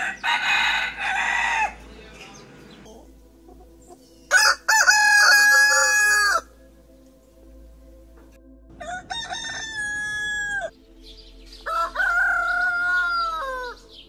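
Roosters crowing, four crows in turn, each one to two seconds long with a couple of seconds between them, most ending in a falling note. The second crow, about four seconds in, is the loudest.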